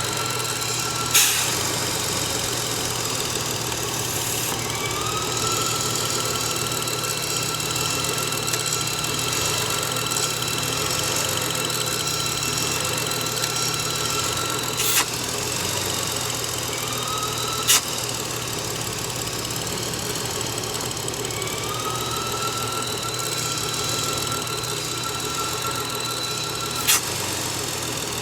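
BMW inline-six engine running at idle with a high-pitched whine that sets in with a short rising glide and holds, several times over, from a failed crankcase vent valve built into the valve cover. A few sharp clicks stand out over it.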